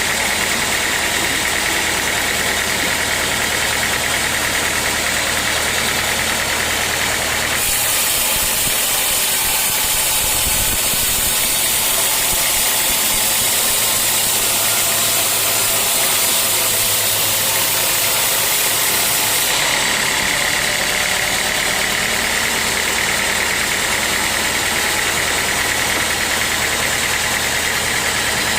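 Sawmill machinery running steadily with a constant low hum and whine. From about eight seconds in until about twenty seconds in, this gives way to a louder, higher hiss, then the steady running returns.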